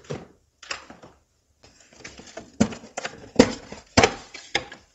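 A wire being pulled free of its plastic retaining clips: scattered plastic clicks and knocks with rustling, a short pause about a second in, then a run of sharp clicks, the loudest two near the end.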